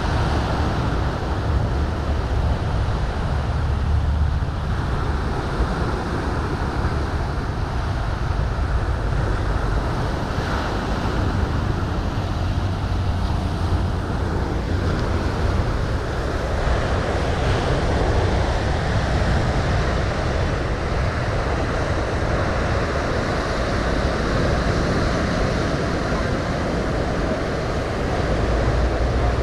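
Ocean surf washing onto a rocky shore, with wind rumbling on the microphone.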